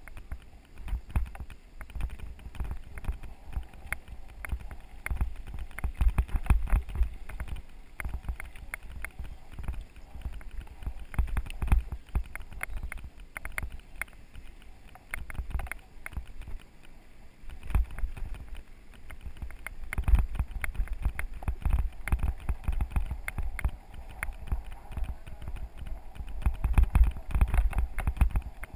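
Mountain bike riding over a bumpy dirt trail: many irregular knocks and rattles as the bike jolts, over a low wind rumble on the microphone.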